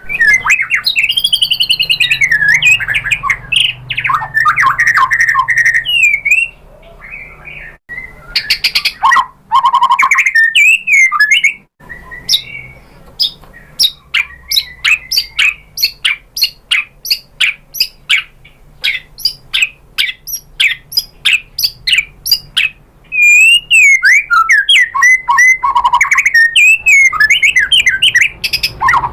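White-rumped shama (murai batu) singing loudly: a run of varied whistled phrases with quick rising and falling notes. From about 12 to 23 seconds the song changes to sharp, repeated chip notes at roughly three a second, then goes back to fluid whistled phrases near the end.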